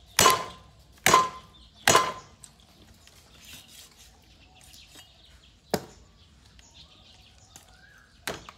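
Meat cleaver chopping raw poultry on a round wooden chopping block: three hard chops a little under a second apart, each with a short metallic ring. A single lighter chop follows about six seconds in, and another near the end.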